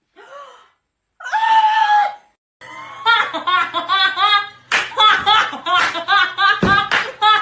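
Comic meme audio: a short pitched sound, then a held tone, then a fast high-pitched voice over a low hum. From about halfway through, several sharp slaps cut in.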